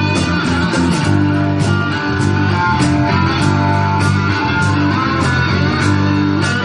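Rock band playing live: electric guitar over a steady bass line, with a regular beat that hits about every 0.6 seconds.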